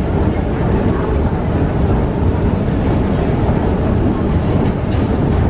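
Steady low rumble of an underground metro station, heard while riding down an escalator.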